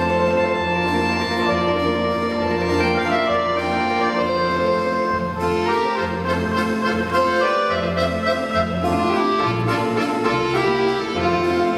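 Orchestra of Russian folk instruments playing: sustained chords over a moving bass line, without a voice.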